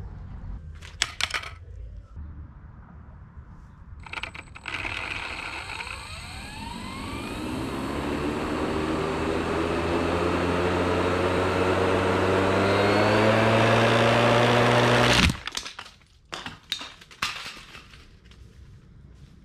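3D-printed combat robot's spinning weapon spinning up with a rising whine that grows steadily louder for about ten seconds, then a sharp crack as it cuts off abruptly: the spinning disc breaks off its arm, and a few clattering pieces land after it.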